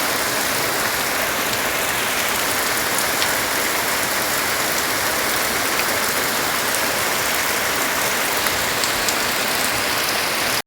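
Steady heavy rain pouring down, an even hiss with scattered drop ticks; it cuts off suddenly at the end.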